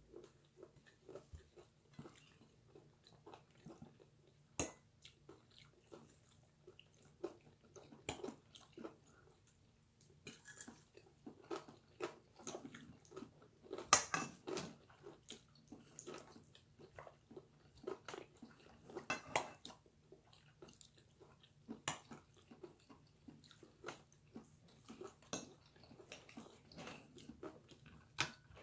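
A person chewing food with soft, irregular mouth sounds, and now and then a fork clicking against a ceramic plate, the sharpest about halfway through.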